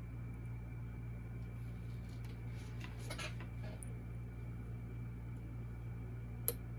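Lock picks and tension wrench working inside the pin cylinder of a Goal V18 lock: faint scratching and light clicking over a steady electrical hum, with one sharp click near the end.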